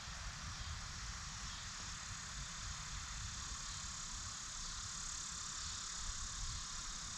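Wind buffeting the microphone with a gusty low rumble, over a steady high hiss of outdoor background noise.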